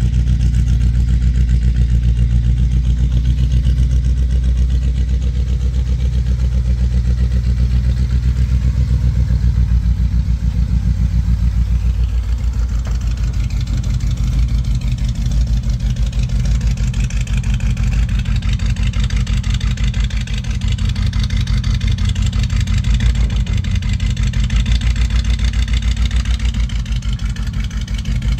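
Chevrolet 350 small-block V8 in a 1974 Chevy K20 4x4 pickup idling steadily, with an even, regular exhaust pulse.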